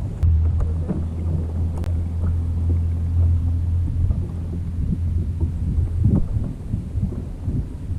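Wind buffeting the microphone, a loud low rumble that is strongest through the first half and eases off later.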